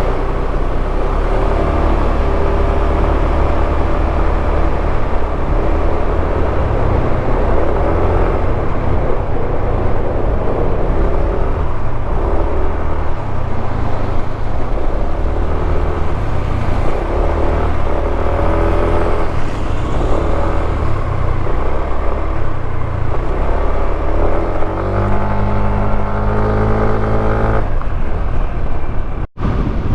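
Yamaha X Force 155 scooter's 155 cc single-cylinder engine running, its pitch shifting up and down and climbing near the end as it revs, over a steady rushing noise. The sound drops out for an instant just before the end.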